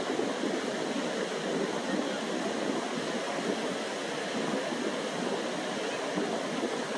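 Sea surf washing steadily, a continuous rushing noise with no separate wave breaks standing out.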